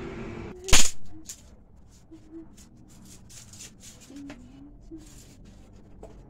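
Dry firewood sticks clattering and crackling as they are handled and pushed into a mud hearth. There is one loud sharp crack about a second in, then scattered light clicks and snaps.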